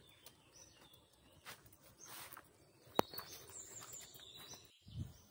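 Faint birds chirping in the open air, with soft footsteps on a dirt trail and one sharp click about three seconds in.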